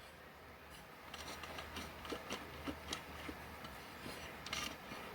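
Faint scattered clicks and light rubbing of small stand parts being handled, with a slightly longer scrape near the end, over a steady low hum.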